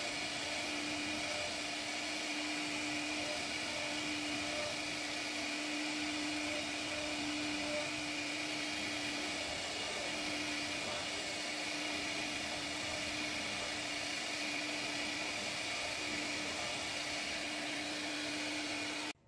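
CNC router spindle carving grooves into a wooden door panel with a profile bit: a steady motor hum with one constant tone under the hiss of the cutting. It stops suddenly at the very end.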